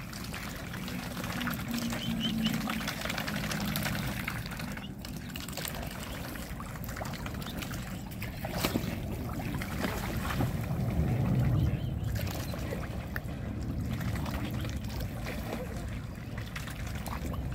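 Water splashing and trickling as mute swans and cygnets dabble and feed with their bills in shallow water, a continuous run of small splashes and drips.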